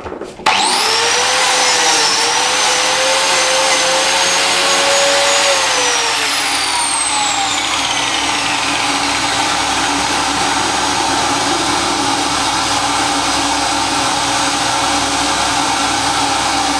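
Einhell TC-BJ 900 biscuit joiner switching on together with its dust extractor and plunge-cutting a biscuit slot. Its motor whine rises as it spins up, holds, then winds down after about five seconds. The extractor's steady suction noise runs on to the end.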